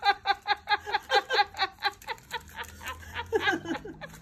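A man laughing hard without a break: a rapid string of breathy bursts, about five a second, trailing off near the end.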